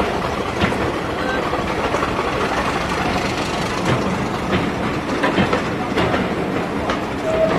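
Railway passenger coaches rolling past at moderate speed, their wheels clicking over rail joints about once a second.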